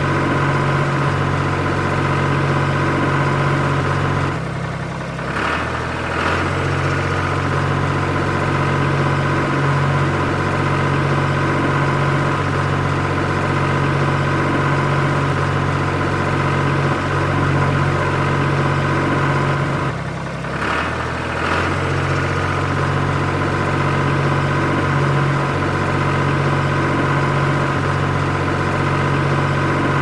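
Small electric gear motors of a homemade model tractor driving its spading attachment, a steady whirring hum that dips briefly twice, about four and twenty seconds in.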